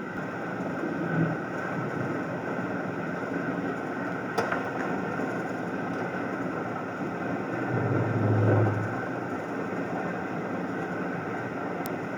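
Wood lathe running with a steady whir. There is a single sharp tick about four seconds in, and a short low hum swells up around eight seconds.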